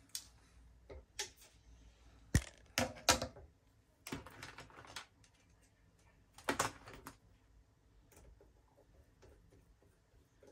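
Irregular clicks and taps, with a few short scraping rustles, from small hand tools and phone parts being handled during a phone screen repair.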